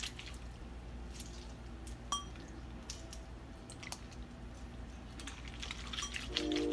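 Wet squishing and small clicks of hands rubbing and squeezing raw conch meat with lime halves in a glass bowl, scrubbing the slime off the conch. A steady low hum runs underneath, and a steady tone comes in near the end.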